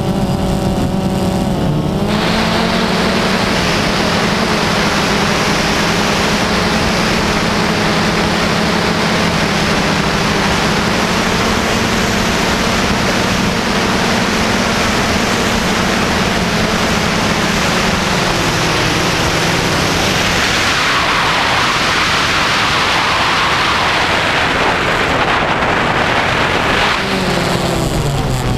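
DJI Phantom 2 quadcopter's brushless motors and propellers buzzing loud and close in a steady hum, with a rush of air. About two-thirds of the way through the hum drops lower and the rush of air grows, and the pitch swings up and down near the end.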